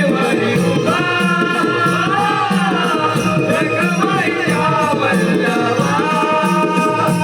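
Konkani Naman folk song: a voice singing a bending melody over a steady drum beat and evenly repeating rattling percussion.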